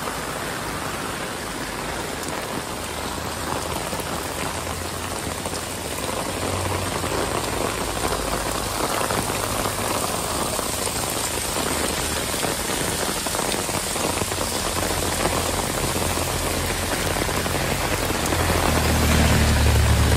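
Heavy rain pouring steadily onto pavement, cars and flooded ground in a dense, continuous hiss. A low rumble swells underneath near the end.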